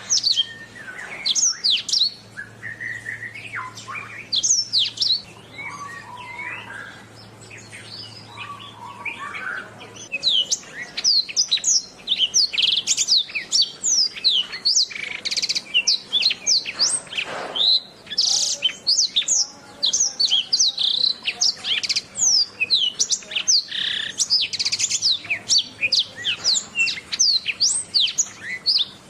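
Domestic canary singing: a long run of rapid high chirps and trills. It is sparser, with some lower warbled notes, for the first ten seconds or so, then dense and continuous.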